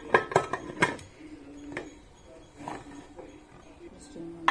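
Aluminium pressure cooker lid being closed and its whistle weight fitted on the vent pipe: a quick cluster of sharp metal clinks and clacks in the first second, then a few single clinks.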